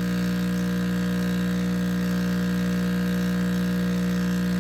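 Jura E8 super-automatic espresso machine running while preparing a latte macchiato, giving a steady electric hum.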